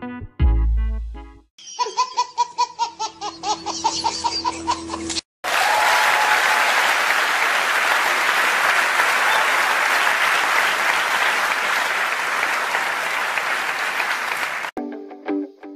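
Large audience applauding for about nine seconds, an even dense clapping sound that stops suddenly. Before it comes a few seconds of a fast, warbling, pulsing sound effect over a held tone, and the applause ends into background music.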